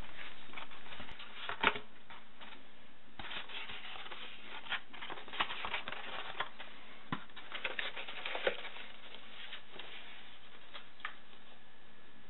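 Paper and cardboard being handled: crackly rustling and light clicks and taps in irregular clusters, with a dense stretch in the middle.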